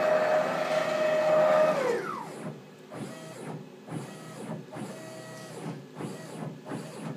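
CNC router's gantry drive motors whining through a long traverse that slows down and drops in pitch about two seconds in. A string of about five short moves follows, each whir rising and falling in pitch.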